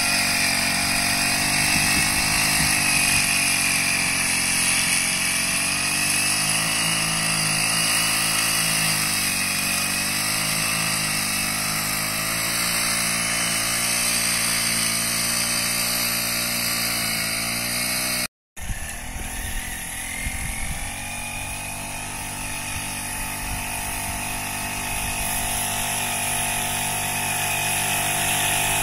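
Small engine running steadily, a buzzing drone whose pitch wavers slightly. It drops out for a moment about two-thirds of the way through, then carries on a little quieter.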